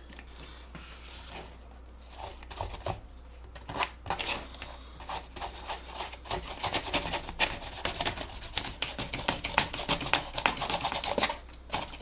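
Paintbrush dabbing and scrubbing paint onto textured foam roof tiles: a quick run of short scratchy brush strokes. It starts about two seconds in and gets busier in the second half, over a steady low hum.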